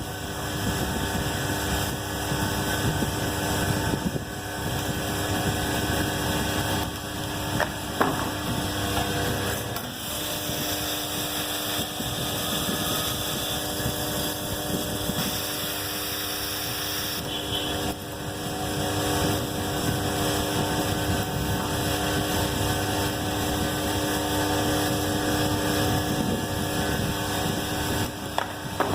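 Machinery running steadily: a constant hum with several steady tones over a noisy wash, with a couple of sharp clicks about eight seconds in.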